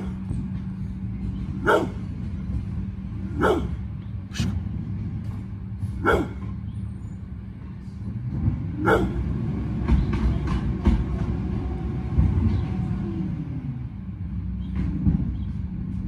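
Brindle pitbull giving single loud barks, about five of them every second or two through the first half, at a garbage truck. The truck's diesel engine runs steadily underneath and swells into a louder rumble for a few seconds from about halfway through.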